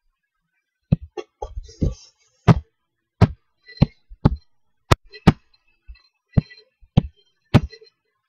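Laptop's Elan touchpad being clicked and tapped by hand: a dozen or so sharp clicks at an uneven pace, roughly one every half second to second, some in quick pairs.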